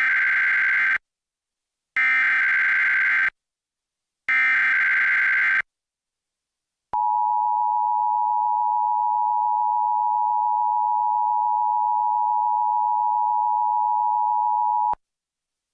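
Emergency Alert System SAME header: three bursts of warbling digital data tones, each about a second long. Then comes the EAS two-tone attention signal (853 and 960 Hz sounded together), held steady for about eight seconds. Together they open an EAS alert, here a Required Monthly Test.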